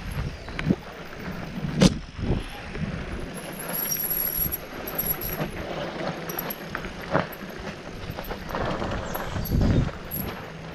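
Mountain bike riding over a rocky trail: the rough rumble of tyres on rock and dirt, broken by sharp knocks of the wheels and frame hitting rocks. The loudest knock comes about two seconds in.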